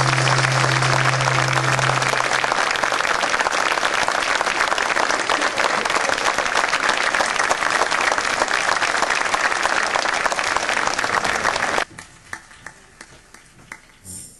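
Audience applauding steadily at the end of a live instrumental piece, over the ensemble's last low note, which dies away in the first couple of seconds. The applause cuts off abruptly near the end, leaving a few scattered claps.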